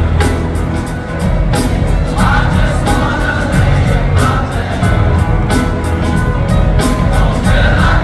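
A large group of young men singing together over amplified music with a heavy bass and a steady beat.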